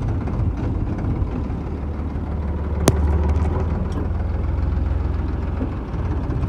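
Tractor's diesel engine running steadily. A single sharp click comes near the three-second mark, and the engine gets a little louder just after it.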